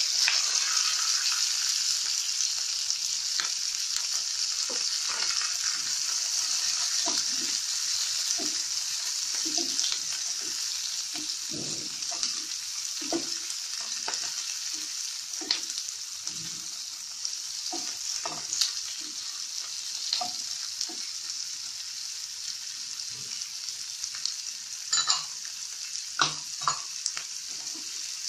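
Chopped onions sizzling in hot oil with whole spices in a frying pan, stirred and scraped now and then with a spatula. The sizzle is loudest as the onions go in and eases off gradually, with a few sharper scrapes near the end.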